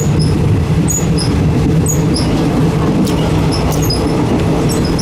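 Thai third-class passenger carriage running along the rails, heard from inside at the open window: a steady, loud low rumble of the wheels and car body, with short high-pitched chirps scattered over it.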